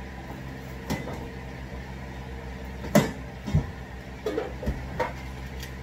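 A few knocks and clunks of household items being handled and set down on top of a clothes dryer, the sharpest about three seconds in, over a steady low hum.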